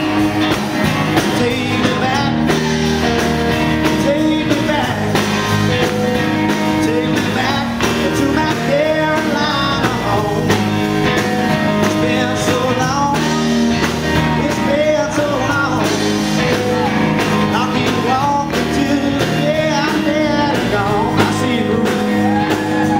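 Live rock band playing: electric guitars, electric bass and drums, loud and continuous.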